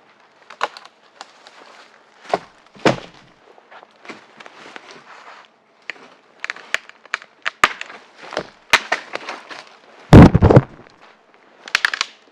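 Dry branches and forest-floor litter cracking and crunching in irregular sharp snaps, with one heavy low thud about ten seconds in and a burst of snaps near the end.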